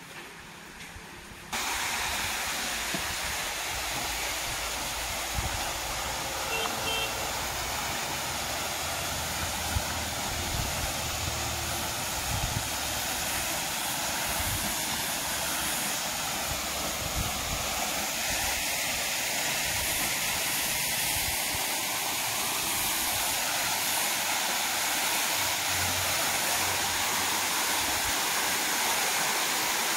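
Waterfall rushing: a steady hiss of falling water that cuts in suddenly about a second and a half in and grows a little louder toward the end. A few low thumps are heard under it in the first half.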